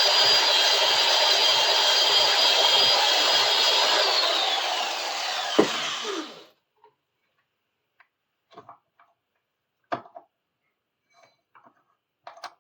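High-speed power tool running with a steady high whine as it strips old tape and grime off a metal bar clamp. About four seconds in it is switched off and the whine falls as it spins down, with a sharp knock just before it stops. A few light clicks and knocks of the clamp being handled follow.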